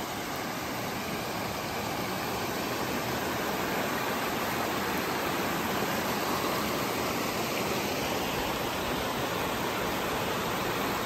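Small creek running over rocks: a steady wash of water noise that grows slightly louder over the first few seconds, then holds.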